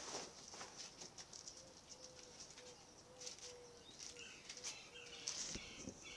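Quiet outdoor ambience with birds chirping faintly, mostly in the second half. The fabric motorcycle cover gives a soft rustle near the start.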